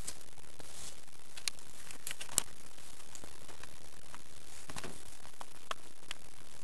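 Room tone: a steady hiss with a few scattered small clicks and knocks. The sharpest click comes about two and a half seconds in.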